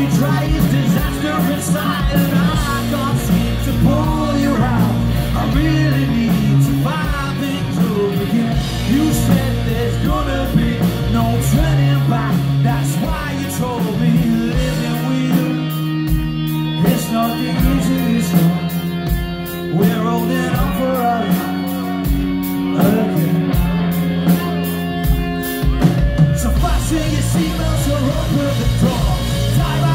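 Rock band playing live, with a sung lead vocal over electric guitar, bass and drums. About halfway through the drums drop back to a sparser passage of held guitar and bass notes, and the full band crashes back in near the end.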